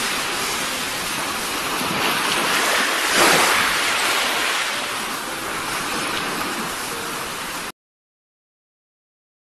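Small waves breaking and washing over a shallow sandy beach, a steady rushing hiss that swells about three seconds in. The sound cuts off abruptly to silence near the end.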